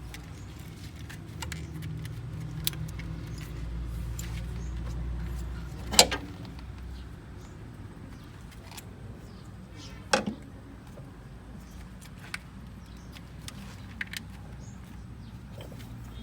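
Sharp metallic clinks and knocks over a low steady hum, the two loudest about six and ten seconds in.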